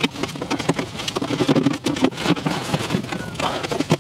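Wooden beehive frames with Hoffmann side bars being pried and shifted with a hive tool: an irregular rapid run of small cracks, clicks and wooden knocks as the propolis gluing the side bars breaks loose.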